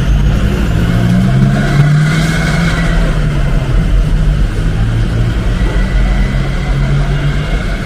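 Street traffic: a car engine running close by, its low hum holding steady with small shifts in pitch.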